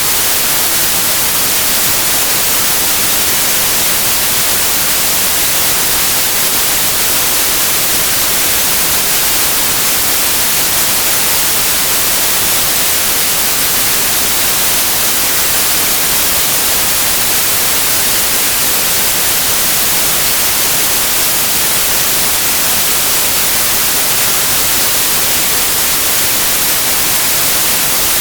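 Steady white noise, a constant even hiss with no tone, rhythm or change, strongest in the high frequencies.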